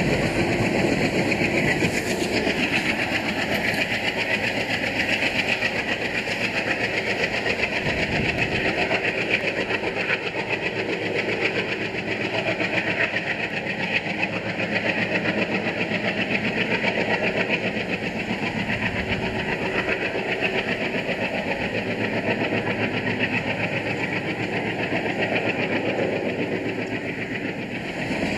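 Diesel passenger train running, hauled by an ALCO diesel locomotive: engine noise mixed with the wheels running on the rails, steady and unchanging throughout.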